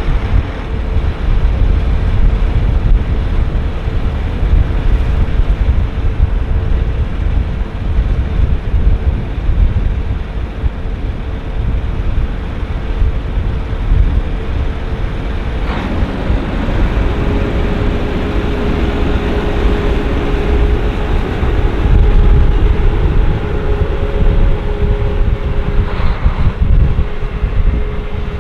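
New Holland CR9.90 combine running while harvesting corn: a steady machine hum whose pitch steps down slightly about halfway through, over heavy wind rumble on the microphone.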